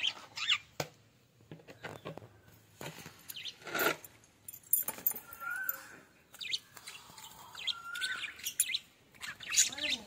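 Budgerigars chirping and chattering: many short scattered chirps, with a few brief warbling notes in the middle.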